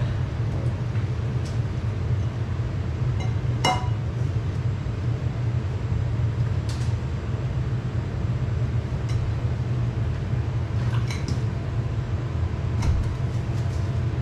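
Steady low machine hum with a few short metallic clinks of tools and parts being handled, the clearest a ringing clink about four seconds in.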